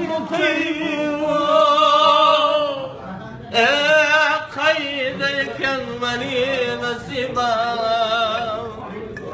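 A man singing long, drawn-out notes with a strong waver, in two main phrases broken by a short pause about three seconds in.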